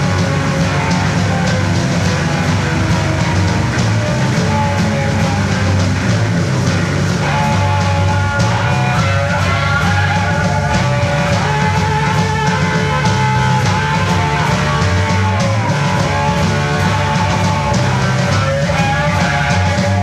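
Live blues-rock trio playing without vocals: electric slide guitar lead with gliding, bending notes over bass guitar and a steady drum-kit beat.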